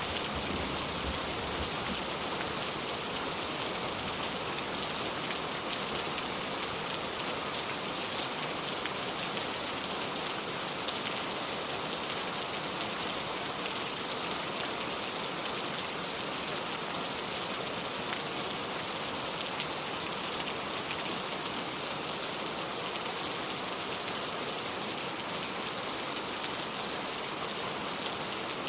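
Heavy rain pouring steadily, a dense even hiss with scattered drop ticks. A low rumble fades out in the first second or so.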